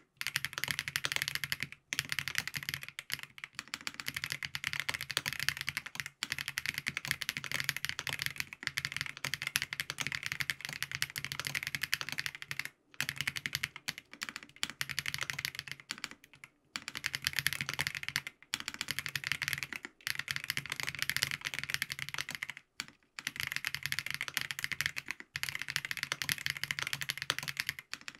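Fast, continuous typing on a FancyTech Origin 65A custom mechanical keyboard with lubed Geon Black switches, a gasket-mounted POM plate, foam dampening and ABS keycaps: a dense stream of keystrokes, broken by short pauses every few seconds.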